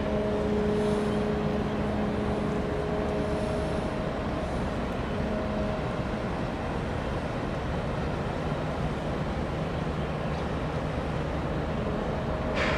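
Steady low rumble of a large container ship's engine as the ship passes close by. A droning hum in several pitches comes and goes during the first six seconds.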